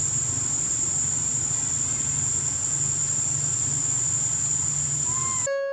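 Outdoor ambience: a steady high-pitched insect drone over a low rumble, with one short faint call about five seconds in. Near the end it cuts abruptly to plucked-guitar music.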